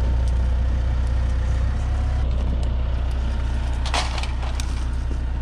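Wood cracking and splintering in a short burst of snaps about four seconds in, over a steady low rumble.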